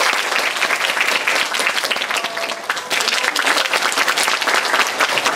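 Audience applause: many hands clapping together, holding steady and dense.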